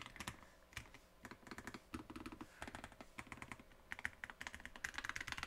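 Typing on a LoFree Flow low-profile mechanical keyboard with tactile Kailh POM switches and PBT keycaps: a quiet, irregular run of key clicks.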